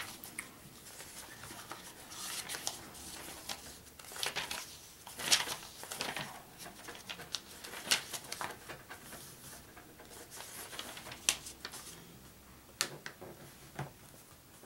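Paper instruction manual being handled and its pages turned: irregular rustles and crinkles with light clicks, the sharpest snaps about five, eight and eleven seconds in.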